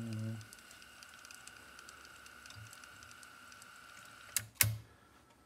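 Sony TC-FX707R cassette deck winding its calibration tape on to the next test tone: a steady thin whine with faint rapid ticking. About four and a half seconds in, the whine stops with two sharp clicks from the tape transport mechanism.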